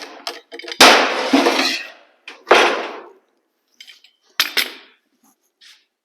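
Metal clamps clanking as they are taken off a glued-up panel and set down: a few sharp clanks with short ringing, the loudest about a second in and a quick pair later on.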